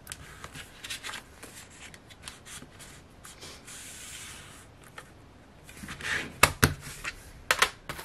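Hands handling a plastic CD jewel case and its paper insert and sticker sheet: light rustling and sliding, then several sharp plastic clicks and knocks near the end as the case is closed and moved.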